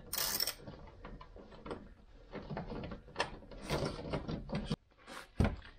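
Small plastic fasteners and the plastic engine undertray of a 2013 Kia Cee'd being worked loose by hand: irregular clicks, rattles and rustles, with a sharp scrape at the start and a dull knock near the end.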